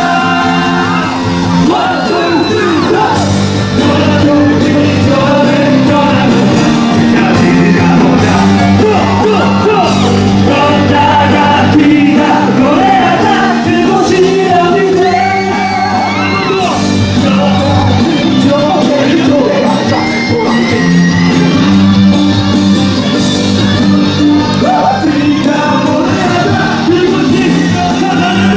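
Stage cast singing an upbeat song into microphones over loud amplified music, with shouts and whoops mixed in.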